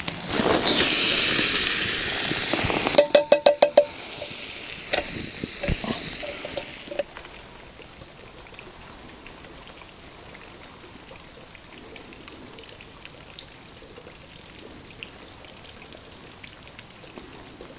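Lentil soup sizzling and bubbling in a pot over a campfire, with a loud hiss for the first few seconds and a quick run of about eight ringing metallic taps a few seconds in. After about seven seconds it drops to a faint background with small crackling ticks.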